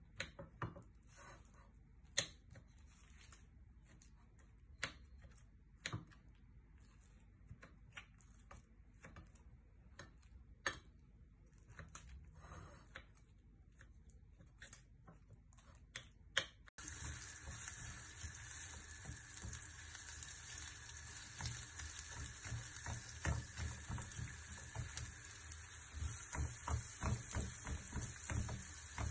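Scattered sharp clicks and knocks of kitchen utensils; then, after a cut about two-thirds of the way through, a steady sizzle of food frying in a pan, with quick rhythmic knocks of a spoon stirring and mashing near the end.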